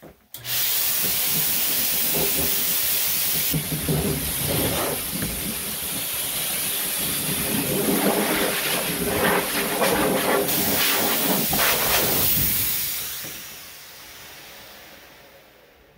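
Dog grooming blow dryer switched on about half a second in, blowing a loud, steady rush of air with uneven gusts in the middle, then switched off near the end and winding down.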